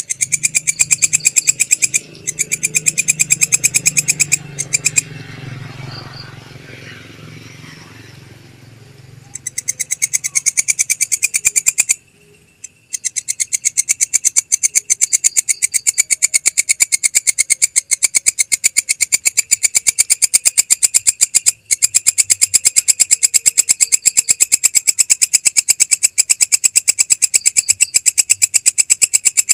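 Belalang kecek (a katydid) stridulating: a loud, rapid, even train of buzzy pulses. The song breaks off briefly about two seconds in, falls silent for several seconds from about five seconds in, then pauses once more before running on without a break. A low rumble lies under the first part.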